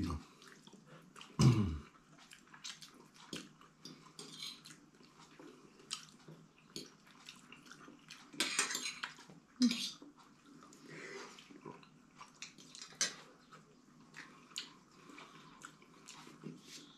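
Forks clinking and scraping on plates as two people eat, a scattering of light clicks with a few louder scrapes around the middle. A brief low sound stands out about a second and a half in.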